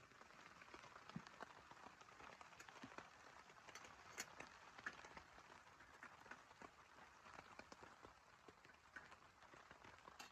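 Faint rain falling, a steady hiss with many scattered, irregular drops tapping.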